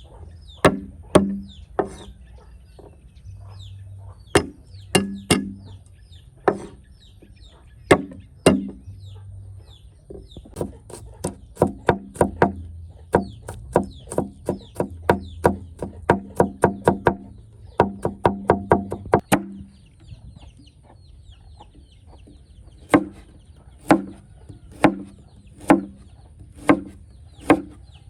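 Knife chopping on a cutting board: single strokes about a second apart, quick runs of several chops a second around the middle, a pause of a few seconds, then steady single strokes again near the end.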